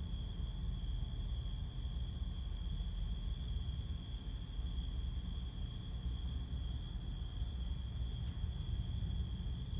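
Night insects trilling steadily in one unbroken high-pitched tone, over a steady low rumble.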